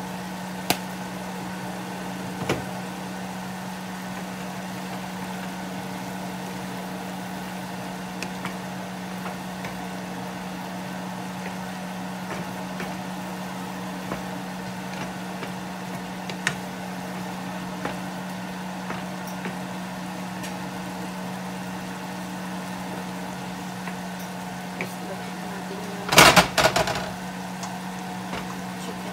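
A steady low hum with a few faint clicks, then a brief burst of clatter about 26 seconds in as a wooden spatula goes into a nonstick frying pan of simmering vegetables.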